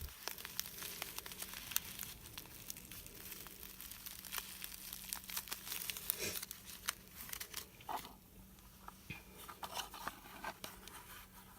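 Paper and cardboard packaging crinkling and rustling as it is handled close to the microphone, a run of small sharp crackles that is busiest in the first half.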